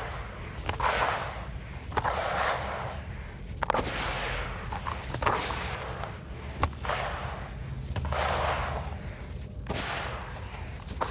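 Chunks of soft sand-cement mixed with white stones crumbling in water: sharp cracks, each followed by a gritty rush of crumbling, repeating every second or two.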